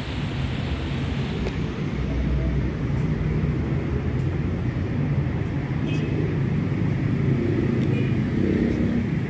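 Steady low rumble of city road traffic, with a few faint ticks.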